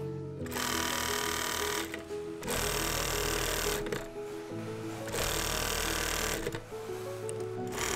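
Single-needle industrial sewing machine stitching bra fabric in runs of one to two seconds, stopping briefly between runs, about four times. Background music with sustained notes plays throughout.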